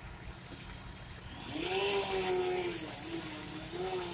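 Chainsaw running on the roof, its engine pitch rising and falling as it cuts into the roofing, starting about a second and a half in with a loud hiss over it for about two seconds.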